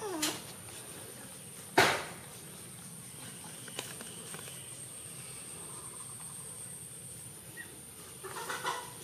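Chicken calls: a short falling call at the start and a quick run of clucks near the end. About two seconds in there is one loud, sharp sound. A steady high hiss runs underneath.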